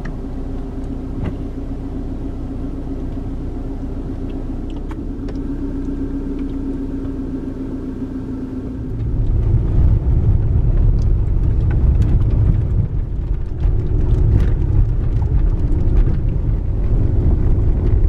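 Toyota RAV4 running with a steady hum, heard from inside the cabin. About nine seconds in it turns to a louder rumble of tyres on a dirt road as the SUV drives along, with scattered small ticks.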